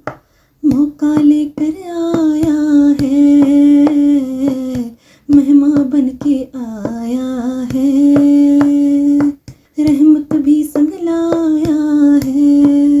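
A naat melody hummed without words by a single voice: long held notes with ornamented turns, over a steady ticking beat. The voice breaks off briefly three times, at the start, about five seconds in and about nine and a half seconds in.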